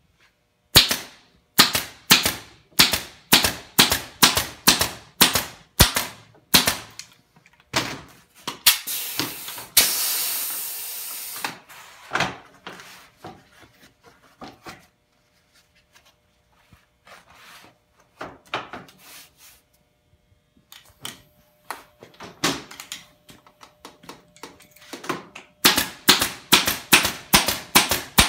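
Pneumatic staple gun firing staples through canvas into a stretcher bar, in quick runs of sharp shots about two a second. Near the middle there is a burst of noise and a few scattered knocks.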